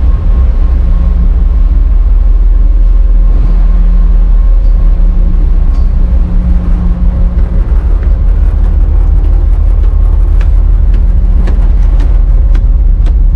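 Wind buffeting the microphone with a heavy, fluctuating low rumble on the open deck of a moving ferry, over the ship's steady hum. From about ten seconds in come sharp clicks roughly every half second: footsteps on the steel stairs.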